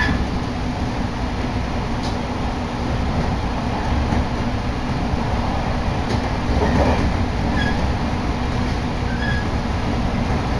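Electric train running at speed, heard from inside the passenger car: a steady low rumble of wheels on the track, with a few faint clicks.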